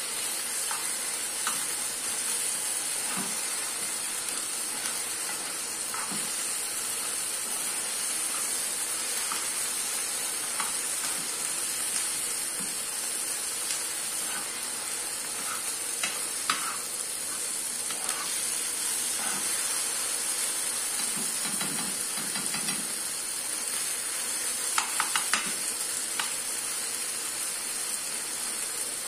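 Rice frying in a pan, sizzling steadily, while a metal spoon stirs it and scrapes and clinks against the pan; a quick run of clinks about 25 seconds in.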